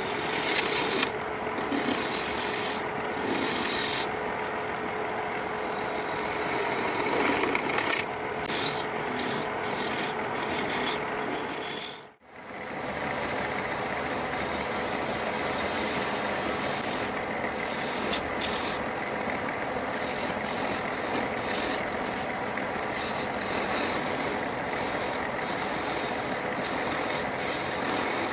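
Wood lathe running with a faint steady hum while a turning tool cuts a spinning spindle blank, a continuous scraping hiss of shavings that swells and eases with each pass of the tool. The sound cuts out briefly near the middle.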